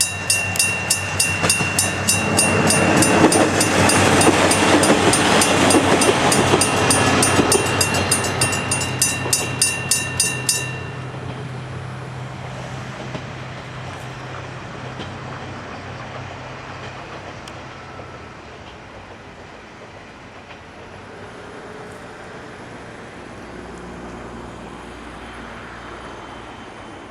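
An electric level-crossing bell rings in rapid, even strikes while a KiHa 200 diesel railcar passes over the crossing, loudest a few seconds in. The bell stops about ten seconds in, and the railcar's engine dies away as it leaves.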